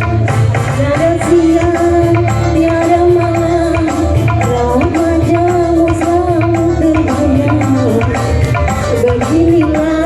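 Music: a singing voice holding long, gliding melody notes over a steady hand-drum beat.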